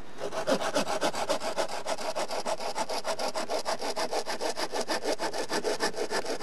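A small folding hand saw cutting through a thin wooden branch with quick, even back-and-forth strokes.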